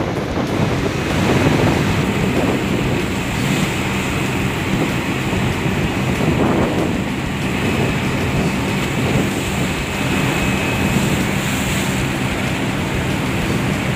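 Rough sea rushing and breaking against a moving ship's hull, with wind buffeting the microphone and the ship's steady low engine drone underneath.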